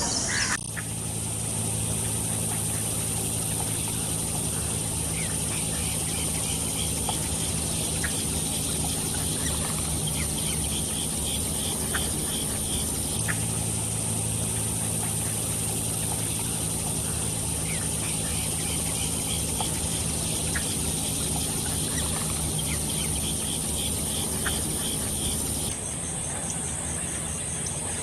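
Farm poultry calling, with short faint chirps now and then over a steady low hum and a steady high whine.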